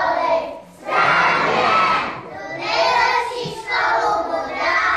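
Choir of young children singing in unison, loudly, in four short phrases with brief breaks between them.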